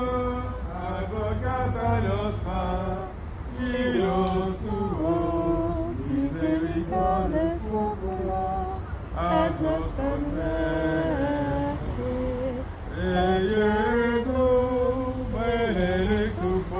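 A small group of men and women singing a Catholic hymn together, a slow melody of long held notes, over a steady low rumble.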